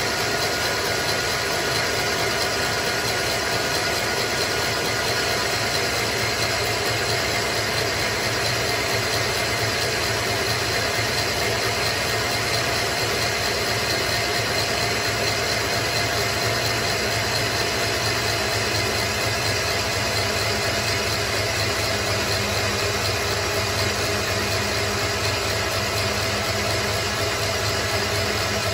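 Krups stand mixer motor running steadily, whisking egg whites as hot sugar syrup is poured in a thin stream: the whipping stage of boiled icing.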